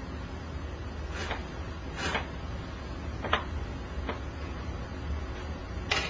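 Several short clicks and scrapes at irregular intervals over a steady low hum, like objects being handled.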